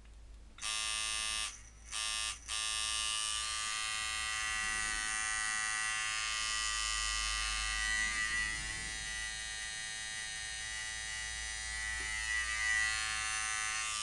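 Micky Bee "Brass" Lightning dual-coil tattoo machine buzzing at 6 volts, set with a long throw as a soft-hitting colour packer. It is switched off and on twice in the first couple of seconds, then runs steadily, swelling a little twice as it is moved.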